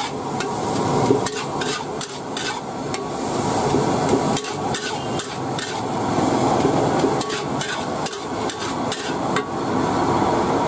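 Metal ladle knocking and scraping against a wok while stir-frying rice: repeated irregular sharp clanks over a steady frying hiss, the clanks stopping shortly before the end.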